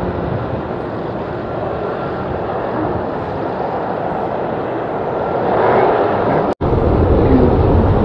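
Steady jet engine noise from a Boeing 777 on the runway. It breaks off abruptly about six and a half seconds in and gives way to louder, deeper jet engine noise from a regional jet climbing out.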